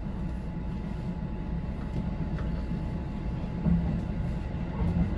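Kintetsu local electric train running, heard from inside the train: a steady low rumble with a faint steady whine, slowly getting louder.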